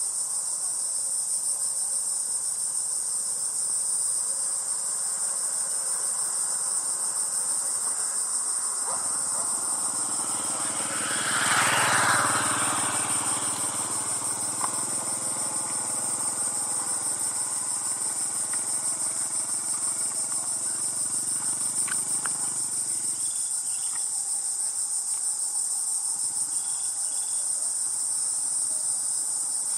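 Steady, high-pitched insect chorus throughout. A motor vehicle engine passes by, rising from about a third of the way in, loudest shortly after, then fading away.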